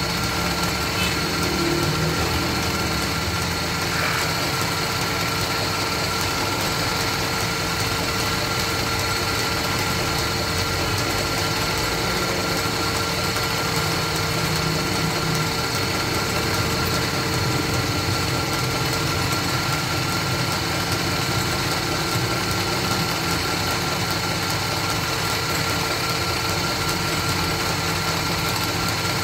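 A belt-driven wood lathe running steadily, with a constant hum and faint whine, spinning a turned wooden bed leg while it is polished.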